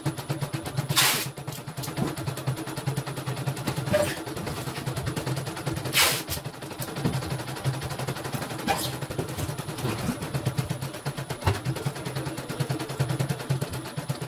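CNY computerised embroidery machine stitching, its needle bar rattling in a very fast, even stream of clicks over a low motor hum, with a few louder sharp clacks. The footage is sped up, so the stitching rate sounds faster than real time.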